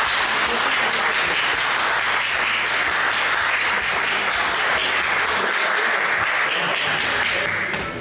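Audience applauding steadily after a won arm-wrestling round, dying away near the end.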